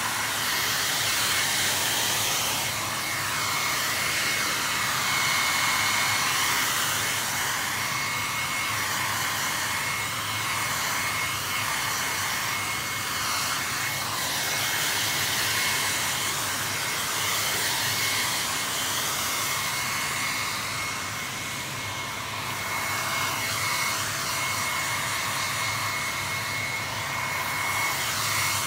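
Handheld hair dryer blowing steadily over a leather car seat, its sound wavering as it is swept back and forth, with a thin steady whine. It is drying a freshly sprayed coat of leather lacquer.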